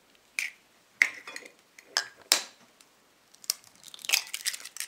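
Kitchen knife blade tapping a raw eggshell, a handful of short, sharp cracks, then the shell pried apart over a glass bowl.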